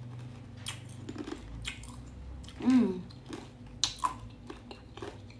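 A mouthful of shaved-ice dessert being chewed close to the microphone: a run of small wet smacks and crisp clicks. About halfway through there is one short hum of the voice.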